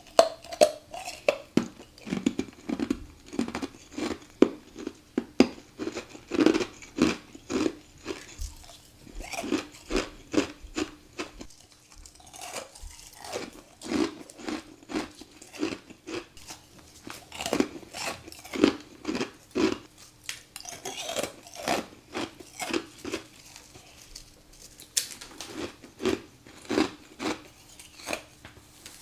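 Close-up crunching bites into frozen frost, one sharp crackly crunch after another in quick clusters, then chewing.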